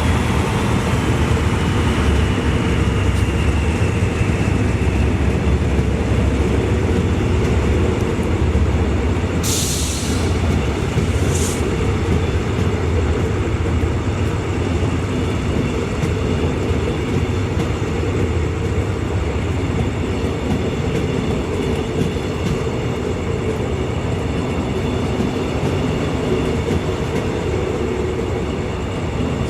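Passenger train running along the track, a steady low rumble of wheels and cars with a high wheel squeal that slides down in pitch over the first few seconds. Two short hisses cut in about ten and twelve seconds in.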